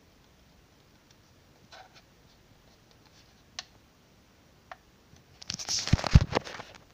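Handling noise as a hand-held power bank and the recording device are moved over a desk. A few faint scattered clicks come first. Near the end there is a louder burst of rubbing noise with two dull knocks.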